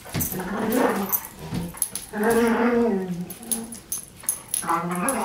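A dog making long, drawn-out, voice-like whining calls, three in a row, each bending in pitch and falling away at the end.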